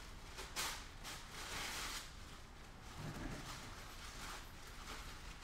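Cardboard trading cards, a stack of Panini Donruss basketball cards, sliding and flicking against each other as the stack is shuffled and sorted by hand, in a few short rustles; the sharpest comes about half a second in.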